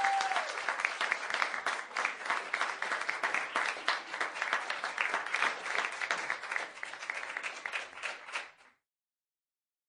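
Canned applause from a crowd, many hands clapping, fading gradually and stopping abruptly near the end, with a brief held high note at the very start.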